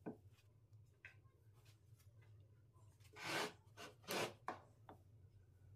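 A light wooden tap, another about a second later, then two short rubbing sweeps of a hand brushing across the face of a sawn wooden slab, followed by two sharp clicks of the wooden tool against the wood.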